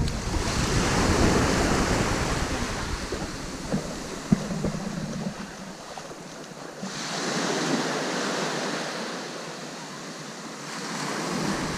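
Small waves washing onto a sandy beach, swelling and fading every few seconds, with wind buffeting the microphone during the first half and a single sharp click a little after four seconds in.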